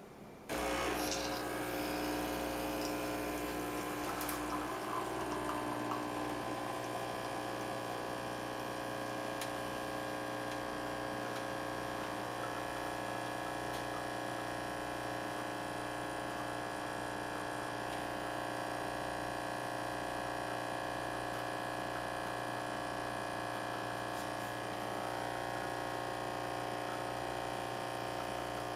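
The illy X8 iperEspresso machine's pump running with a steady buzzing hum. It starts about half a second in, with water being forced through to brew.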